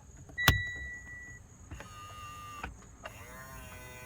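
A 2008+ Mitsubishi Lancer's power side mirror motor whirring in two short runs, about a second each, as the mirror is adjusted electrically. It is working properly after the mirror swap. Just before the runs there is a sharp click with a short electronic beep, the loudest sound here.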